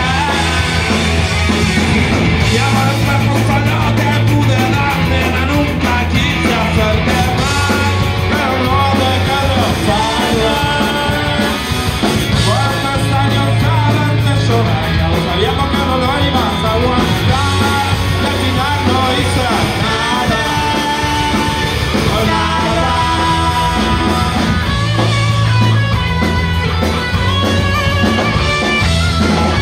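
A rock band playing live on electric guitars, electric bass and drums, with a man singing lead; loud and continuous throughout.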